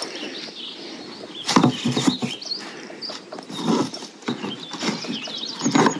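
Irregular knocks, bumps and rustles of camping gear being handled and packed into leather pannier boxes, with a handful of louder knocks spread through the few seconds.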